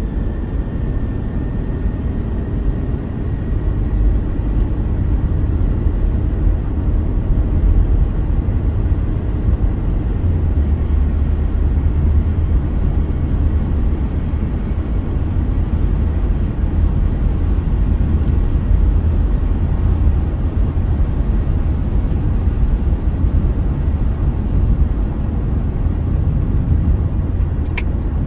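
Steady road, tyre and engine rumble of a moving car, heard from inside the cabin, with a single faint click near the end.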